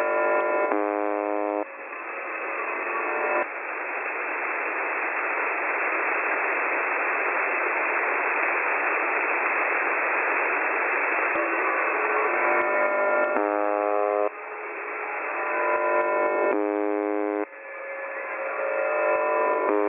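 Shortwave radio signal of the UVB-76 'Buzzer' station over a narrow, radio-band audio channel. A harsh buzz tone comes in bursts of one to two seconds and alternates abruptly with long stretches of dense static-like noise.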